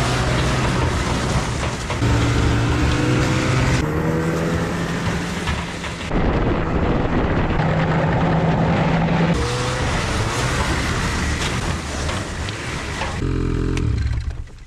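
Motor engines running loudly and revving, heard in a string of short cuts that start and stop abruptly.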